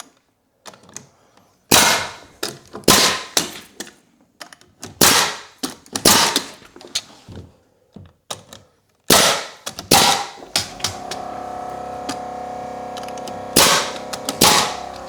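Pneumatic framing nailer firing nails into wood studs, about a dozen sharp shots at irregular spacing. About eleven seconds in, the Milwaukee M18 Fuel 2840-20 brushless air compressor kicks on and runs with a steady hum under the last shots, refilling its tank as the pressure drops.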